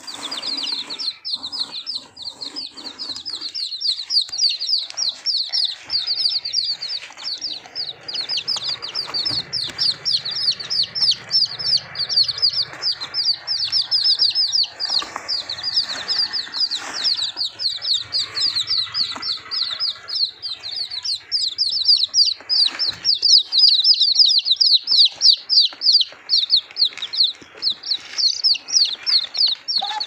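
Newborn chicks peeping without a break: many short, high-pitched peeps, each falling in pitch, several a second and overlapping from several birds.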